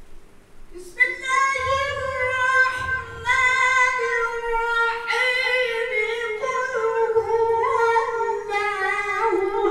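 A man reciting the Quran in the melodic tajweed style, his high voice through a microphone holding long, ornamented notes. The recitation begins again about a second in, after a pause for breath.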